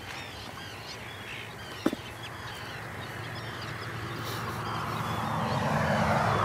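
Many short, high bird chirps call in quick succession, with one sharp click about two seconds in. From about four seconds a rushing noise with a low hum swells up and becomes the loudest sound near the end.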